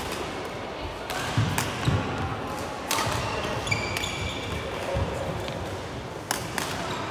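Badminton doubles rally: several sharp racket strikes on the shuttlecock a second or two apart, with players' footsteps thudding and shoes squeaking on the wooden court floor, echoing in the sports hall.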